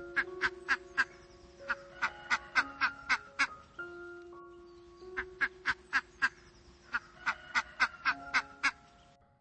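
Duck quacking in rapid runs of short calls, several runs in a row, over soft background music with held notes.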